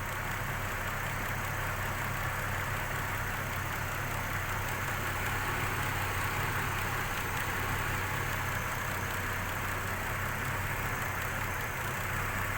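Six-cylinder car engine idling steadily, with cylinder 5's misfire cleared by a new spark plug.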